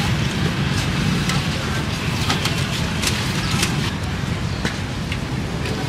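Outdoor street ambience: a steady low rumble of passing traffic, with scattered clicks and knocks.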